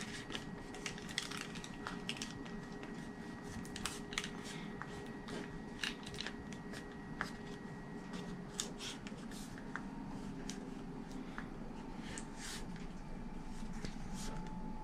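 Faint scattered ticks and crinkles of a corrugated plastic (Coroplast) winglet being flexed and handled by hand, over a steady faint hum.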